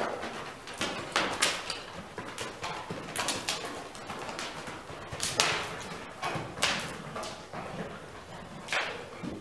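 A ridden horse walking on the sand footing of a riding arena, its hoof falls soft and irregular. Several sharp, noisy sounds stand out, the loudest about five and a half seconds in.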